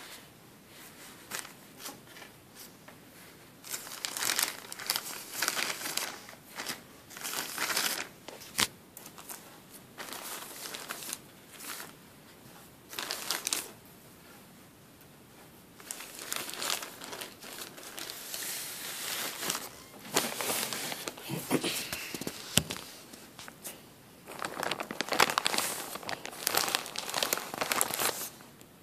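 Clear plastic zip-top bag full of cotton balls squeezed and crinkled by hand, in repeated spells of crinkling a few seconds long. The first few seconds are quieter, soft handling.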